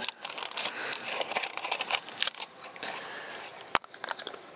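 Handling of camp cooking gear and food-pouch packaging as the stove is shut off after boiling water: irregular crinkling and clicking, with one sharp click near the end.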